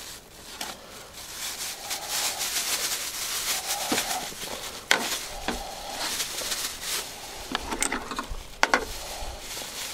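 A thin plastic supermarket bag rustling and crinkling as a minced meat mixture is squeezed out of it into a plastic bowl, with soft squelches and a few sharp crinkles.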